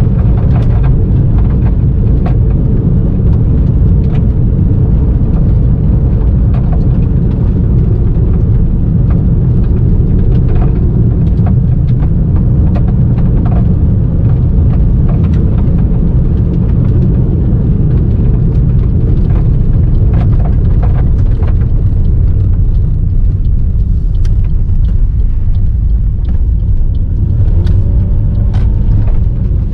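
Car driving on a gravel road, heard from inside the cabin: a steady low rumble of tyres and engine, with scattered sharp ticks of loose gravel striking the underside.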